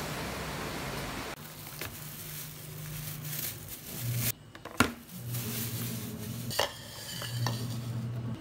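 A thin plastic bag rustling as it is untied, then sharp knocks and clinks of a ceramic bowl handled on a countertop; the loudest knock comes about five seconds in. A low steady hum runs underneath, after a second or so of even outdoor noise at the start.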